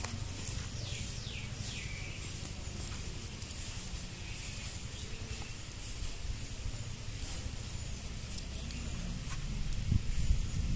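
Faint rustling and handling noise as hands tie a marinated whole chicken's legs with banana fibre over crinkling banana leaves, with a low steady rumble underneath.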